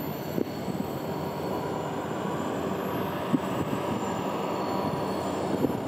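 Train running past on the line: a steady rumble of wheels on rails that grows slightly louder, with a few sharp clicks.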